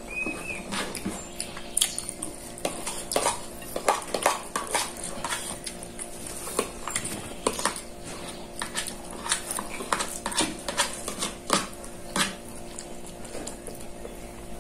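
Eating sounds: a metal spoon tapping and scraping on a plastic plate, with chewing and lip-smacking, as many irregular clicks and taps. A steady faint hum runs underneath.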